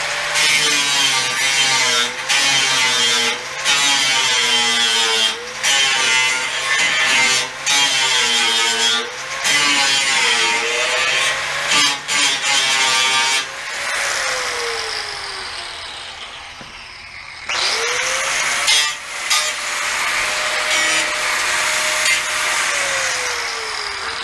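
Corded angle grinder grinding old weld off a steel bed frame rail, its motor pitch wavering and dipping as the disc bites, with short breaks as it is lifted. It winds down about 14 seconds in, starts again a few seconds later and winds down near the end.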